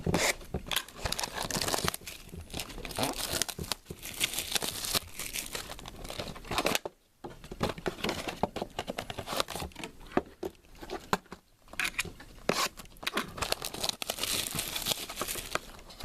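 Plastic wrapping on a trading-card box being torn open and crumpled, in irregular crinkling, crackling rustles. There is a short pause about seven seconds in.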